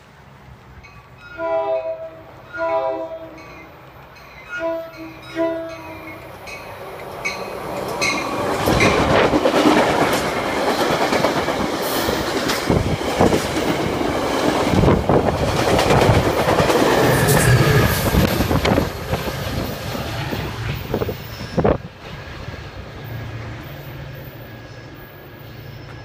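Metra commuter train horn sounding four blasts as the train approaches. The train then passes close by at speed for about fifteen seconds, with a steady roar and wheels clattering over the rail joints, fading after it has gone by.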